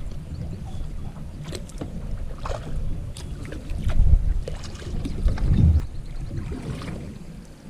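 Canoe paddling: paddle strokes dipping and splashing in the water at irregular intervals, over a low wind rumble on the microphone that swells in gusts.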